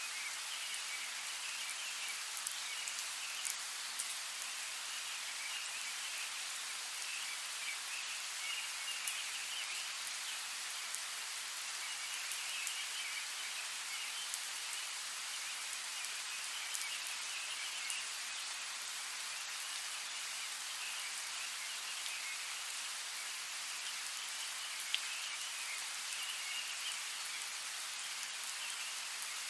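Steady rain: an even hiss of rainfall with scattered sharp ticks of single drops striking a surface.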